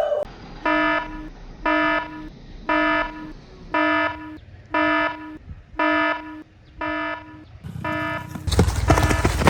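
Electronic alarm buzzer beeping: eight long, harsh beeps, about one a second, all at the same pitch. Near the end a louder, noisier sound comes in over it.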